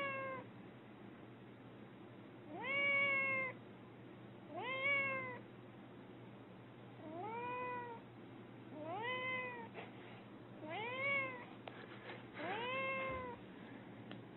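Domestic cat meowing over and over: seven meows about two seconds apart, each rising in pitch and then held.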